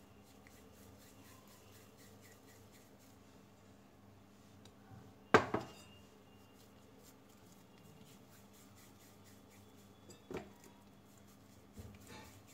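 Balls of dough set down into a glass bowl: one sharp knock about five seconds in, a softer one near ten seconds, and a few light taps near the end.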